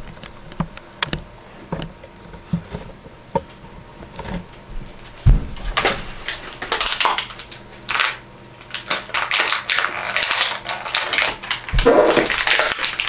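Light plastic toy pieces and packaging clicking and knocking, with one heavier thump about five seconds in, then a clear plastic packaging bag crinkling and rustling through the second half.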